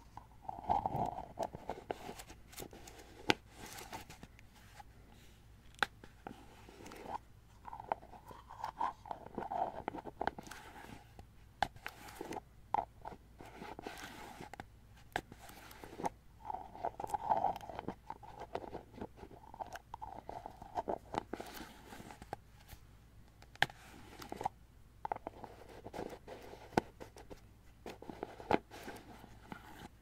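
Fingers tapping on plastic objects for ASMR: quick, hollow clicks and knocks in irregular flurries with brief pauses between.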